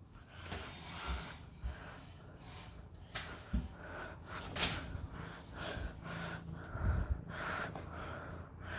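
A person's heavy breathing close to the phone's microphone: quick, repeated breaths in and out. A few soft bumps from the phone being handled.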